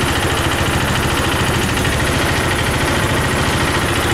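Go-kart engine idling steadily, running cold just after a hard start in near-freezing weather.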